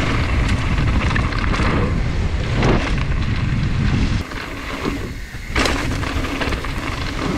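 Wind rumbling on the microphone over the noise of mountain-bike tyres and frame rattling on a downhill dirt trail, with a short drop in the rumble a little past halfway.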